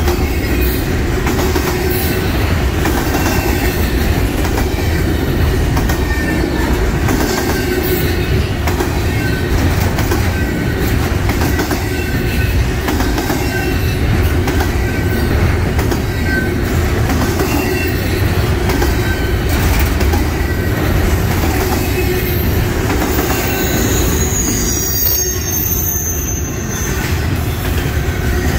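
Double-stack intermodal freight train's well cars rolling past close by: a heavy, steady rumble of steel wheels on rail with regular clacking over rail joints and faint wheel squeal. The high-pitched squeal grows stronger for a couple of seconds near the end.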